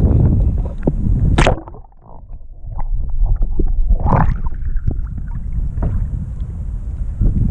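Camera plunging into seawater beside a kayak with a splash about a second and a half in, the sound then going muffled and quiet underwater until it breaks back out with another splash about four seconds in. Wind on the microphone and sloshing water around it before and after.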